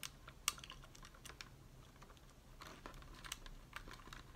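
Faint, scattered clicks and taps of a plastic RC buggy body shell being handled and fitted down onto its chassis, with a brief rustle a little after halfway.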